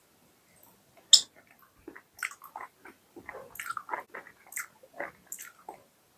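A person eating mutton curry with roti: irregular chewing and biting sounds, small clicks and smacks, the loudest a sharp click about a second in.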